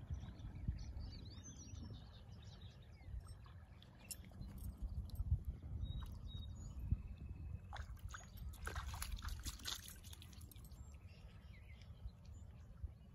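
Ambience of a swollen, fast-running river: a low, steady rumble of moving water, a few bird chirps in the first couple of seconds, and scattered light splashes and clicks from a dog's paws stepping into the shallows at the edge of a concrete boat ramp.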